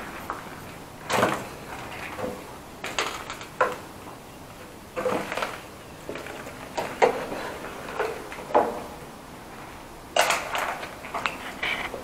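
Footsteps and scuffs on a concrete floor strewn with debris: about a dozen irregular knocks and scrapes. The steps come more quickly near the end, over a steady background hiss.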